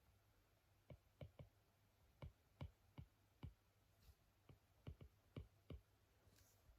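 Quiet, irregular clicking taps, about a dozen sharp hard clicks spread over some five seconds, some in quick pairs.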